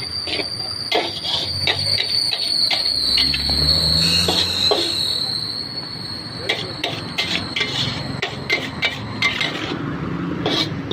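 Metal spatula clanking and scraping against a wok as noodles are stir-fried, in irregular strokes over a steady high-pitched whine.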